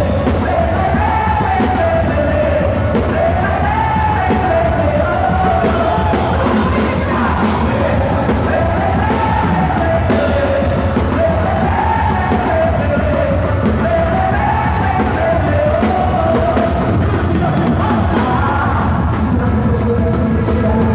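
Loud quadrilha junina (festa junina) music with a singing voice carrying a wavering melody over a steady low bass, with yells over it.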